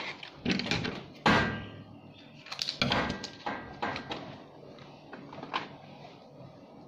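Irregular knocks, clicks and plastic rustling as small medicine packets and objects are handled and set down on a counter, with the sharpest knock about a second in.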